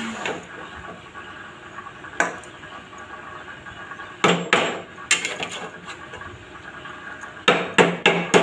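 Spatula knocking and clanking against a kadai as Maggi noodles are stirred and tossed: single sharp clanks, one about two seconds in, a quick run of them around four to five seconds and another run near the end, over a steady low hiss.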